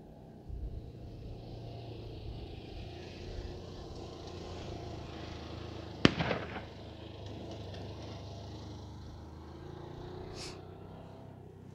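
Wood fire burning under a cast-iron griddle, a steady low noise broken by one sharp pop about halfway through and a smaller crackle near the end.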